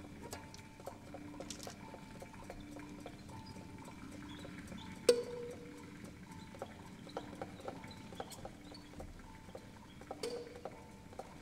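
Sparse free-improvised music: a low and a higher short tone alternate over and over, under scattered small clicks and taps. A sharp metallic percussion strike rings out about five seconds in, and a smaller one comes near the end.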